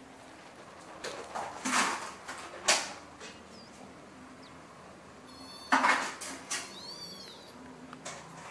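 A Siamese-type kitten and adult cat play-fighting on a hard floor: short scuffling noises a few times, and a couple of brief high-pitched kitten mews about five and seven seconds in.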